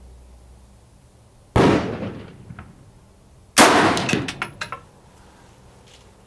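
Two rifle shots from an AR-15 with a 16-inch heavy bull barrel firing 55-grain full metal jacket rounds, about two seconds apart, each with a ringing tail. A few short sharp clicks follow the second shot.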